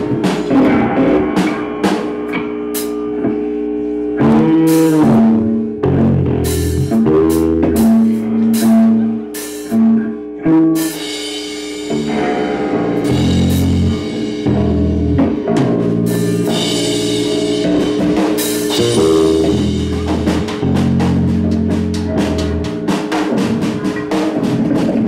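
Live band playing: rapid drum kit and cymbal hits over bass guitar and electric guitar.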